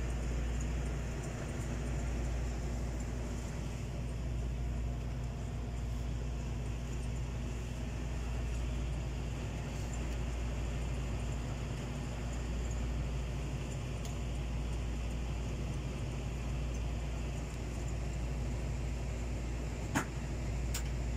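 Steady low hum of a shop's background noise, with a sharp click near the end.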